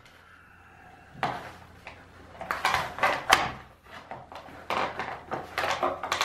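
A dull knife sawing and scraping through the cardboard and tape of a long shipping box in uneven strokes, starting about a second in.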